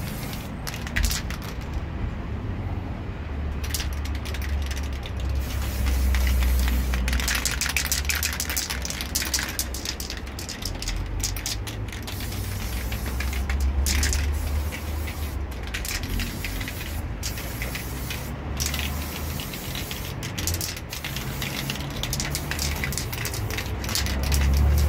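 Aerosol spray can of bumper paint hissing in many short bursts, with a brief pause near the start, over a steady low rumble.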